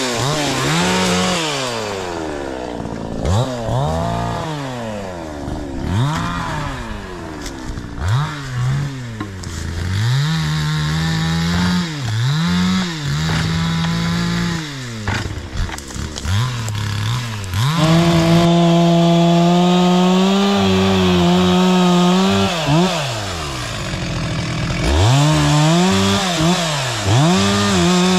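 Two-stroke chainsaw revved up and down again and again, its pitch rising and falling with each blip of the throttle. Later it is held at high revs for several seconds, dips briefly, then runs high again near the end.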